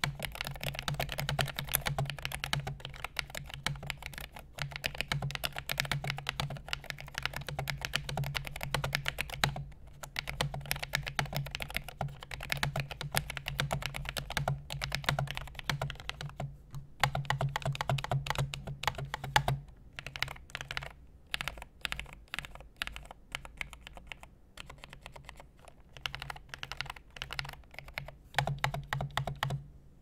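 Typing on a TeleVideo keyboard with Hi-Tek Series 725 linear white "Space Invaders" switches: a fast, dense run of key clacks with short pauses about 10, 17 and 20 seconds in, then sparser, more spaced keystrokes over the last third.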